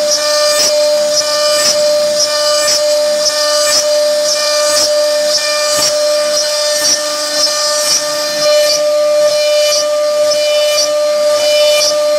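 CNC wood router spindle running with a steady high whine while its bit cuts a pocket into a wooden bed panel; the cutting noise pulses about once a second.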